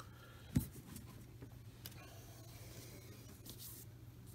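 Cardboard baseball cards being handled and shuffled over a tabletop, with a soft knock about half a second in and faint rustles and clicks after, over a low steady hum.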